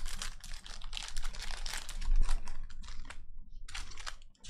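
Glossy Donruss Optic basketball trading cards being handled straight out of a freshly opened foil pack and flicked through one by one: a rapid run of small clicks and rustles that thins out toward the end.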